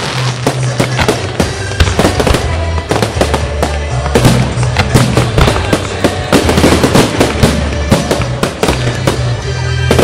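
Fireworks display: a dense, irregular run of bangs and crackling from aerial shells and crackling stars, over music with a steady low bass line.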